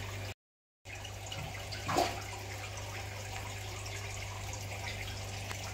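Steady running and trickling water with a low hum from aquarium equipment in the fish tanks. The sound cuts out for about half a second near the start, and there is one short louder sound about two seconds in.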